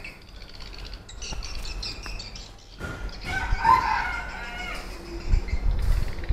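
A rooster crowing once, a long call starting about three seconds in, over a low rumble.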